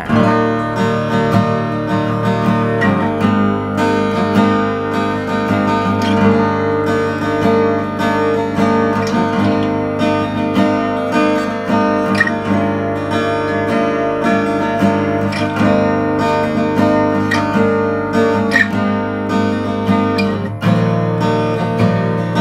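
Acoustic guitar played fingerstyle, a continuous passage of ringing chords and picked notes. The strings have just been wiped clean with a string cleaner, and the tone is clearer for it.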